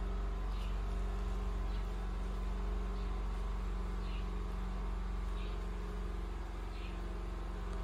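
A steady low hum, with faint short high-pitched chirps repeating about once a second.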